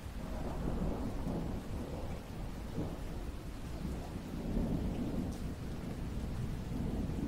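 A low rumbling noise with no clear pitch that swells and eases.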